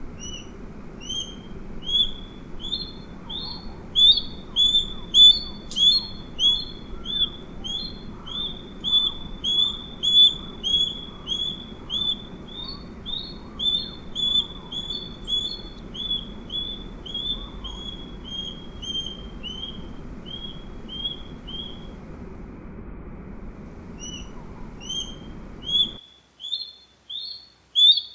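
Osprey giving a long series of short, upslurred whistled calls, about two a second, pausing briefly near the end before starting again. A low steady background rumble sits under the calls and cuts off near the end.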